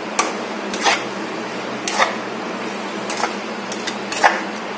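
Spatula scraping and knocking against a nonstick kadai while stirring raw chicken pieces in spice paste, a stroke about once a second over a steady hiss.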